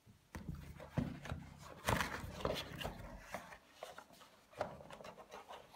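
Cardboard box being opened and handled: a string of knocks, taps and rubbing scrapes of cardboard and the packed plastic device, the loudest knocks about one and two seconds in.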